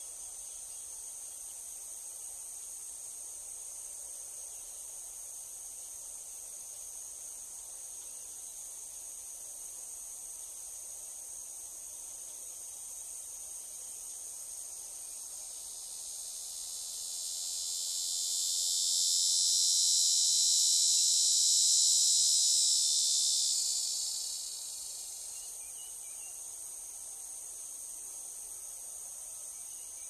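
Steady high-pitched insect chorus. A louder, slightly lower insect buzz swells in a little past the middle, holds for several seconds, then dies away.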